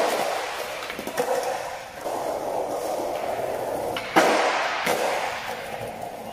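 Skateboard wheels rolling on a hard tiled floor with a steady gritty rumble, broken by sharp knocks of the board: one about a second in, the loudest just after four seconds as the board strikes the low wooden box on a noseblunt slide attempt, and another about half a second after that.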